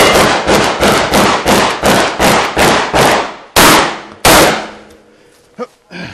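Shotgun fired rapidly, about ten shots at roughly two a second. The last two are the loudest, and the string stops a little after four seconds in.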